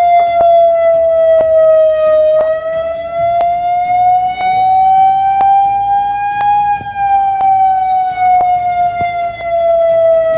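Civil defence warning siren wailing in a slow rise and fall. It sinks in pitch for the first two seconds, climbs for about four seconds, then sinks again to the end.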